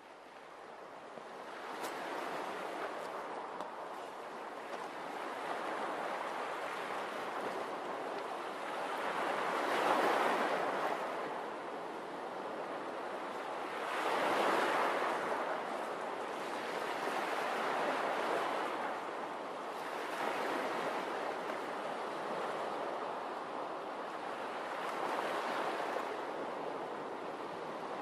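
Ocean surf: waves washing in and drawing back, swelling every few seconds. It fades in at the start, and the biggest swells come about ten and fourteen seconds in.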